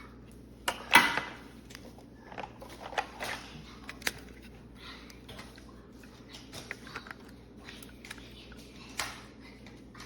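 Irregular small clicks, taps and knocks over a faint steady hum, with one louder knock about a second in.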